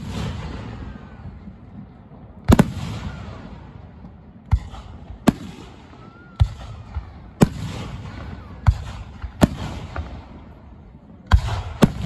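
Aerial firework shells bursting overhead: about ten sharp bangs at irregular intervals, each trailing off in an echo.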